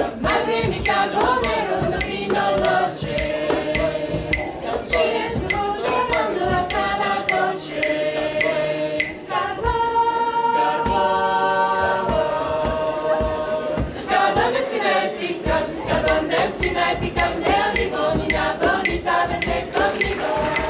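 A small mixed group of young voices singing a cappella in harmony over a steady percussive beat. About ten seconds in they hold a long chord for two or three seconds, then move on.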